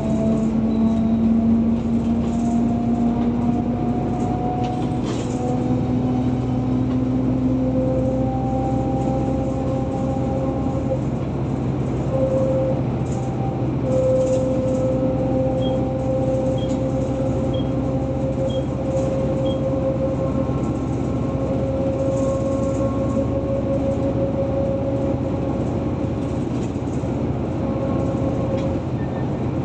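Car driving at speed along an open road: a steady drone of tyre and engine noise, with a hum that creeps slowly upward in pitch.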